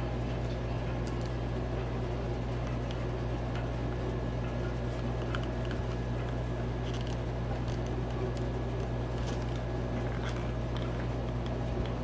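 Steady low hum, with a few faint small clicks and taps as the fuel pump's filter clip and plastic parts are handled.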